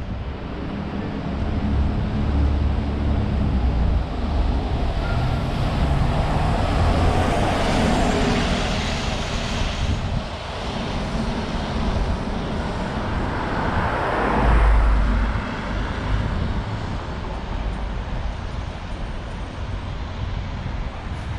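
City street traffic: cars passing one after another, their tyre and engine noise swelling and fading over a steady low rumble. A deep rumble from a passing vehicle stands out about fourteen seconds in.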